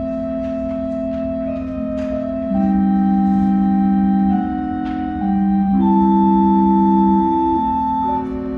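Church organ playing slow, sustained chords, each held a second or more before moving smoothly to the next. It swells louder for a few seconds twice, from about two and a half seconds in and again from about five seconds in.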